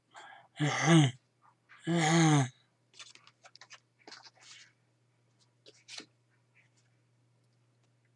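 A man gives two short vocal sounds about one and two seconds in, then flash cards rustle and click as he handles them, over a faint steady low hum.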